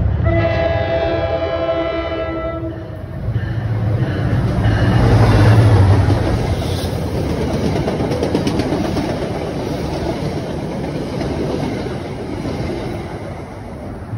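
NJ Transit diesel-hauled passenger train going by: the locomotive's multi-chime horn sounds a long blast, ending about three seconds in, then the engine's low rumble swells as the locomotive passes, loudest around five to six seconds. The single-level coaches follow with clicking wheels on the rail joints, fading as the train goes away.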